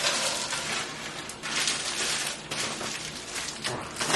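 Hot pan grease sizzling steadily as frozen mixed vegetables are poured in from a plastic bag, with a few louder crackles and bag rustles.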